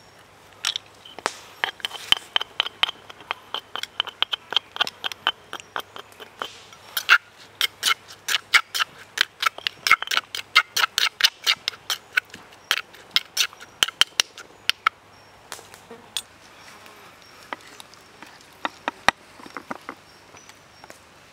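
Metal spoon stirring sauce in a stone mortar, with rapid clinks and scrapes against the stone at about three to four a second. The clinks thin out to occasional taps after about 15 seconds.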